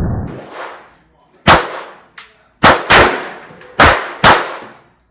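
Glock 17 9mm pistol fired five times in uneven succession: a single shot, then a quick pair, then another pair, each report sharp and loud with a short echo trailing off.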